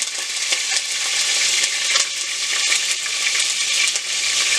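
Pieces of dove breast frying in hot oil in a pot, a steady sizzle with many small crackles and pops. The oil is on the hot side.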